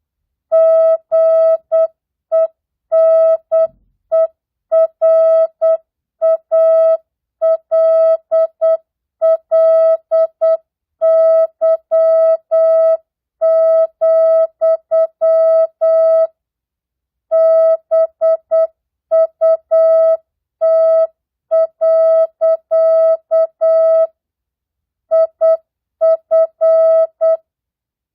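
Morse code (CW) practice tone: a single steady mid-pitched beep keyed on and off in dots and dashes at 8 words per minute with standard, non-Farnsworth spacing, spelling mixed words, numbers and punctuation. The elements run in close groups, with pauses of about a second between words, one near the middle and another about three quarters of the way through.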